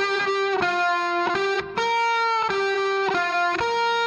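Background instrumental music: a melody of single held notes, with a new note every half second or so.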